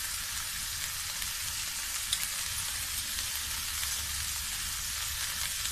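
Hot oil sizzling steadily in a frying pan around sautéed garlic and ginger, with faint crackles and one sharper pop about two seconds in.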